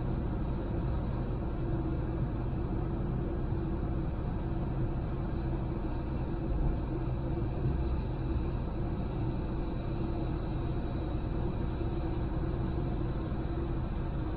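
Honda Civic driving steadily: a continuous, even rumble of engine and tyre-on-road noise, strongest in the low end.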